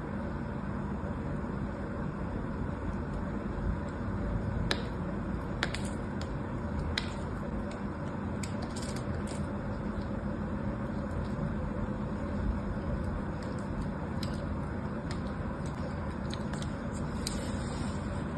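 Small knife cutting and shaving a strip of soap: scattered crisp cuts and snaps over a steady low rumble of background noise.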